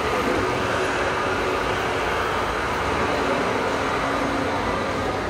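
Steady running noise of a moving vehicle.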